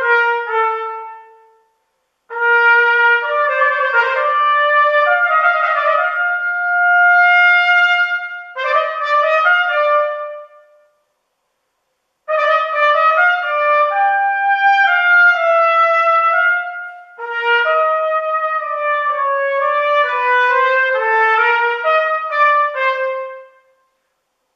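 Unaccompanied solo trumpet playing a melody in phrases, with some notes held long and brief pauses between the phrases.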